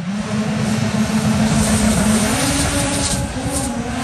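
Drag racing car's engine running hard at high revs, its pitch stepping up about two seconds in and holding there.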